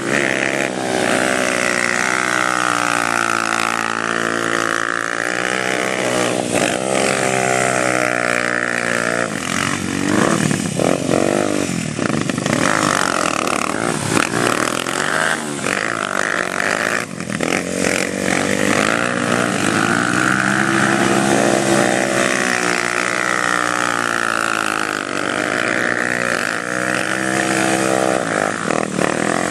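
Quad bike engine revving hard, its pitch rising and falling again and again as the throttle is worked, under a steady hiss of noise.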